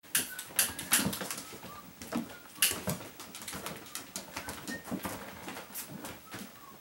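Kittens' paws and claws tapping and skittering on a hard floor as they pounce and chase, an irregular run of sharp clicks and taps, with a few faint short squeaks.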